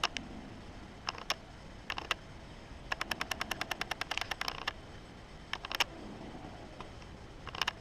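Domestic cat snoring in its sleep, a clicky, rattling snore: short runs of rapid clicks, the longest lasting nearly two seconds in the middle.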